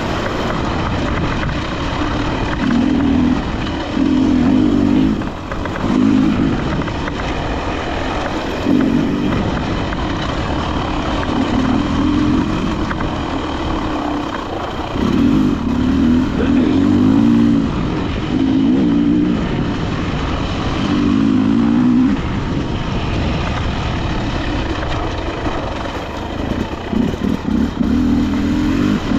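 Enduro dirt bike engine being ridden on a trail, the throttle opened and closed again and again so the revs rise and fall in surges of a second or two.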